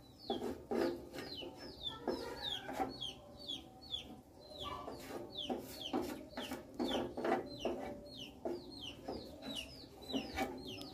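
Chickens clucking, with a run of short, high, falling peeps about two or three a second, among light clicks of a spatula stirring in a frying pan.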